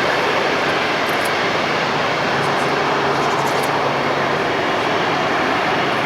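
Airliner engines running with a steady, even rushing noise and a faint low hum underneath.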